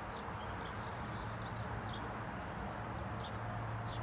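Small birds chirping now and then, short high calls several times a second, over steady outdoor background noise with a low hum.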